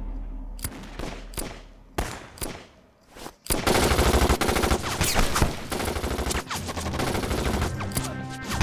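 Gunfire in a film battle: a few separate shots in the first two seconds. After a short gap, rapid sustained automatic fire starts about three and a half seconds in, and music comes in under it near the end.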